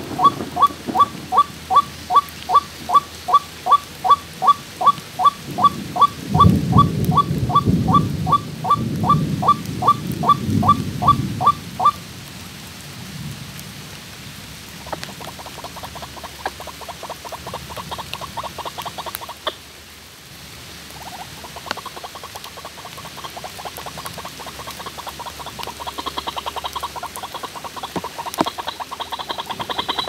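White-breasted waterhen (ruak-ruak) call: a loud, monotonous series of short notes, about two and a half a second, that stops abruptly about twelve seconds in. After a short pause a quieter, faster run of similar notes starts and carries on.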